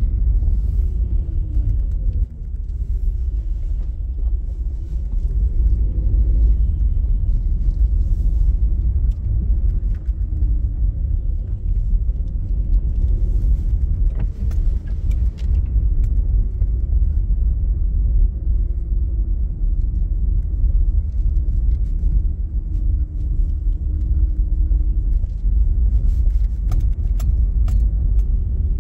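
Car driving, heard from inside the cabin: a steady low rumble of engine and road, with the engine note slowly rising and falling as it drives on. A few light clicks near the end.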